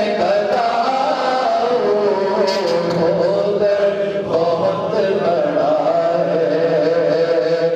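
A man chanting a naat, a devotional poem praising the Prophet, drawing out long wavering notes that slide slowly up and down.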